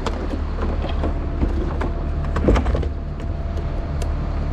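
A truck engine running steadily, with scattered light clicks and knocks and a brief whine from a dog about two and a half seconds in.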